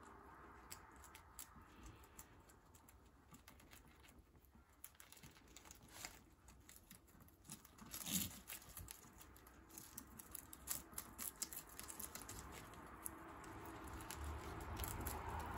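Guinea pigs chewing and tearing leafy greens: quick, irregular crunching and clicking with leaf rustle, busier in the second half, with one louder crunch about eight seconds in.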